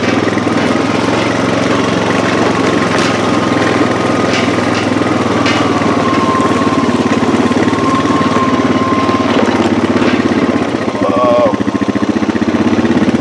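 Four-wheeler (ATV) engine running steadily while towing a heavy homemade irrigator cart across a rough field, with a few short knocks from the towed frame a few seconds in.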